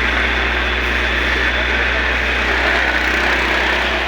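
Fire engine running steadily at idle, under a steady hiss.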